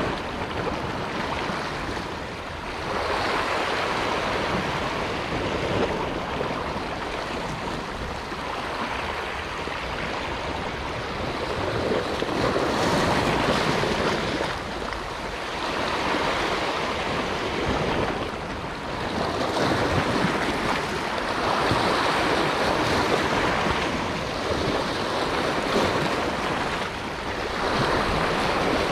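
Sea waves washing and breaking over shoreline rocks, the surf swelling and easing every few seconds.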